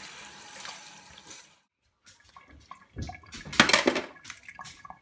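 Cold tap water running onto cooked Dungeness crabs in a stainless steel sink, fading out after about a second and a half. After a short gap, the cooked crab's shell cracks and snaps as it is broken apart by hand: a run of sharp clicks and cracks, the loudest a little past the middle.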